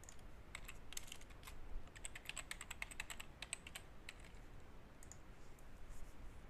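Computer keyboard keys clicking as a password is typed: a quick run of faint key clicks that thins out after about three and a half seconds.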